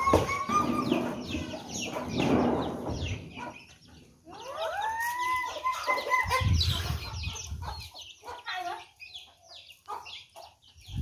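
Domestic chickens: a rooster crows twice, a long arching call each time, once at the start and again about halfway through. Under the crows runs a scatter of high, short peeps from chicks, with hens clucking.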